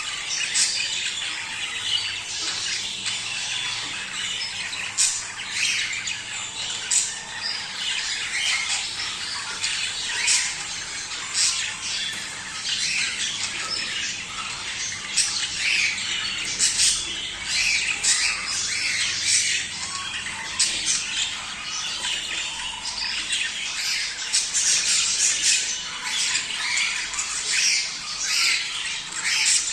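A flock of budgerigars chattering, with many short overlapping calls and scattered sharp squawks in a continuous busy stream.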